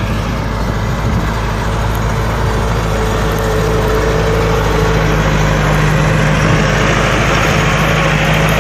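Massey Ferguson 3070 tractor's diesel engine working steadily under load as it pulls a Lemken Opal 110 reversible plough through the soil. It grows a little louder about three seconds in as the tractor comes close.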